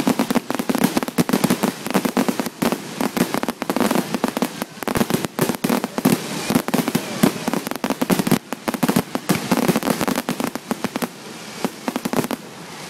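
Fireworks display: a dense, rapid barrage of bangs and crackles that thins out to a quieter rumble about eleven seconds in.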